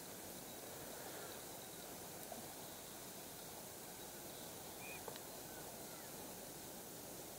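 Quiet outdoor ambience: a steady faint hiss with a few short, faint bird chirps, and a single sharp click about five seconds in.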